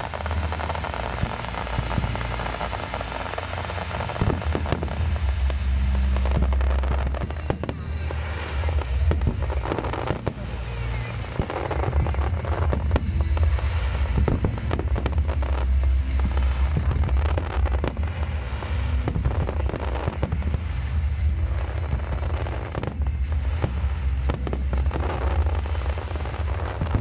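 Aerial fireworks display: a rapid, irregular run of bangs and crackles from bursting shells. Music with heavy bass plays underneath.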